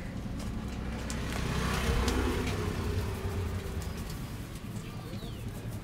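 A motor vehicle passing close by: its engine and road noise swell to a peak about two seconds in, then fade. Scattered light clicks sound over it.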